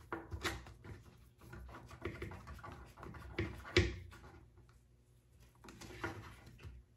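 Small parts being handled and fitted by hand: irregular clicks, taps and rustling, with one sharper knock about four seconds in.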